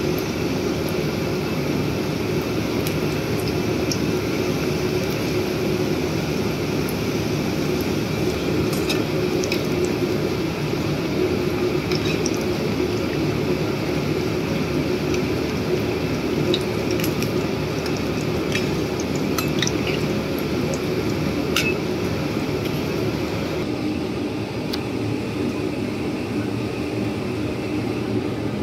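Samosas deep-frying in hot oil in a kadai: a steady sizzle and bubbling, over a faint steady hum, with a few sharp clinks of a metal slotted spoon against the pan.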